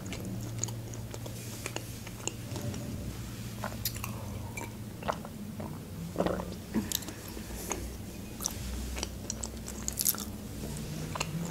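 Close-up mouth sounds of eating: soft chewing with wet clicks and smacks, a sip from a mug about six seconds in, and a bite into a mandarin segment near the end. A low steady hum runs through the first few seconds.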